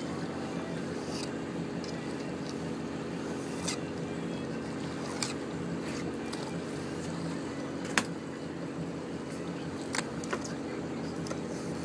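Fishing boat's engine running with a steady hum. A few sharp knocks and clicks come over it, the loudest about eight seconds in, as the salmon and its fillets are handled in the plastic cleaning box.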